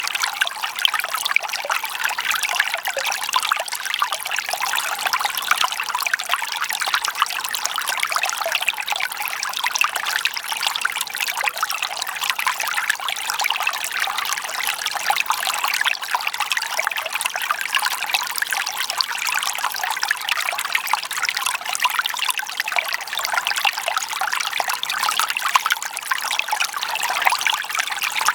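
Water trickling and running steadily, a continuous splashy hiss with no deep rumble.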